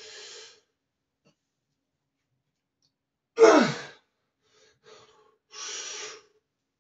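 A man breathing hard, winded from heavy barbell squats: several noisy breaths out, with one loud sigh that slides down in pitch about three and a half seconds in.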